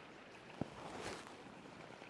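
Creek water sloshing and swishing as someone wades through a pool, with one short sharp knock about half a second in.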